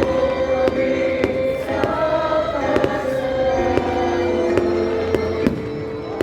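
A choir singing with musical accompaniment, long held notes, while fireworks go off in irregular sharp bangs and pops throughout.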